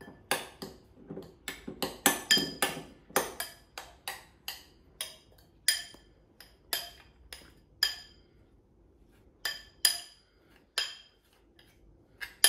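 A metal utensil clinking against a glass bowl while mashed potato is mixed and pressed: quick clinks for the first few seconds, then about one a second, with a short pause a little past the middle.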